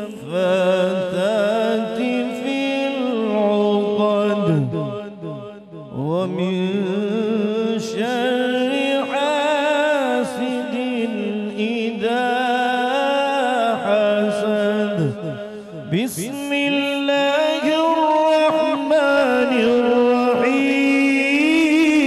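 Unaccompanied Quran recitation by a qari in a melodic tajweed style: one voice holding long, ornamented notes, pausing for breath twice, about five and fifteen seconds in.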